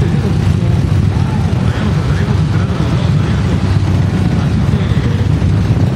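Several motorcycle engines running at low speed together in a slow-moving group, a steady loud rumble with no breaks.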